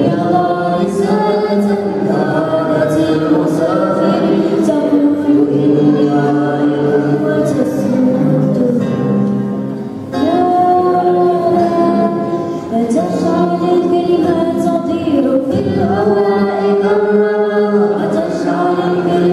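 A young girl singing a melody through a microphone, accompanied on a strummed acoustic guitar, with a brief break between phrases about halfway through.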